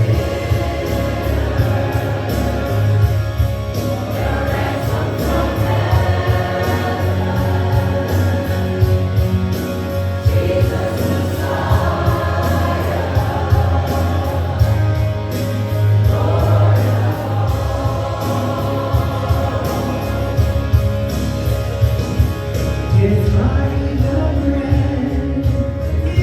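Gospel-style worship song, sung by a group of voices over a band with a steady beat.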